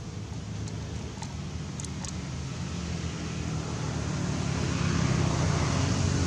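A motor vehicle's engine running close by, a steady low hum that slowly grows louder as it approaches.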